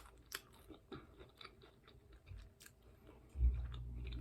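Close-miked chewing of a taco, with wet mouth clicks and light crunching. About three and a half seconds in, a steady low rumble starts suddenly and stays on.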